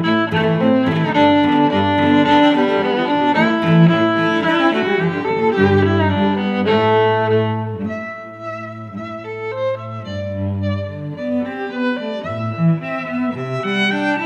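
Background music played on bowed strings, with cello and violin lines, and a softer, sparser passage about eight seconds in.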